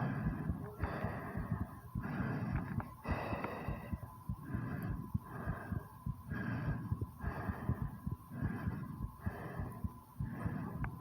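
A woman breathing hard and fast, out of breath after squats, a breath sound about every second, with quick low heartbeat thuds underneath.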